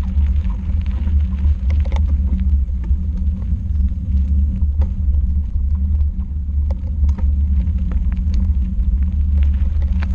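Steady low rumble of wind buffeting a moving action camera's microphone, with crunching and scattered small clicks from tyres rolling over a gravel trail.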